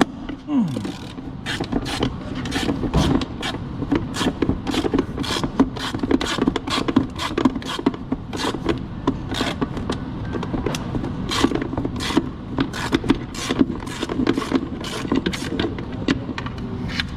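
Hand ratchet with a swivel and short socket turning out a transmission bell housing bolt: a steady run of sharp ratchet clicks, about two to three a second, with a low steady hum underneath.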